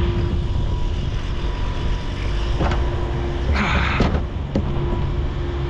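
Engine running steadily with a constant low rumble and hum, with a short hiss about three and a half seconds in and a few light clicks.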